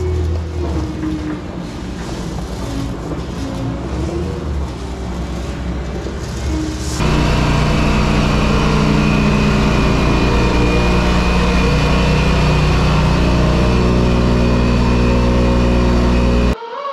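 Construction machine's engine running, its pitch rising and falling. About seven seconds in it changes abruptly to a louder, steady drone of several held tones, which cuts off near the end.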